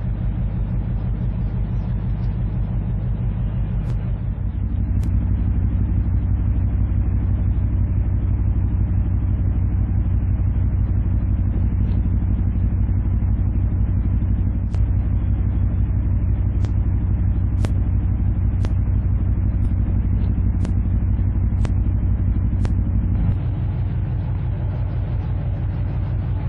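Heavy marine diesel engines running at manoeuvring power: a steady low rumble with deep engine tones that steps up about four seconds in and drops back near the end. Faint ticks about once a second in the later part.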